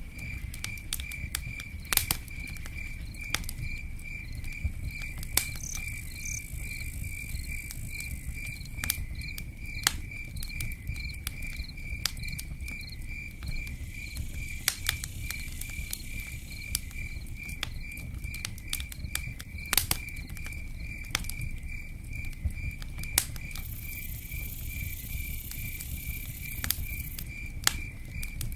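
Campfire crackling, with sharp pops at irregular moments over a steady low rumble, while a cricket chirps in an even, rapid pulse.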